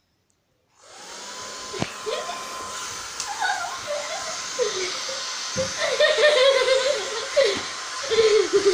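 Hair dryer switched on about a second in, running steadily with a constant whine. Vocal sounds bend up and down over it from about two seconds in.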